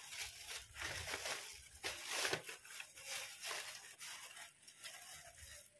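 Stiff silver glitter ribbon and bouquet wrapping crinkling and rustling as they are handled, in irregular crackles with short pauses.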